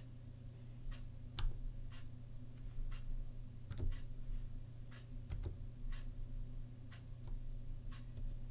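Keystrokes on a Zilpzalp split ergonomic keyboard fitted with low-profile Kailh Choc Twilight switches, typed slowly and unevenly: single key clicks at irregular gaps, roughly two a second, over a steady low hum.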